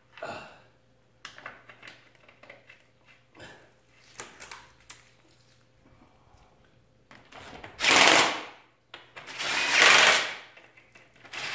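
Cordless DeWalt power driver running in three short bursts on the bolts of a radiator fan assembly, the last starting just before the end, after some light clicks and knocks of the parts being handled.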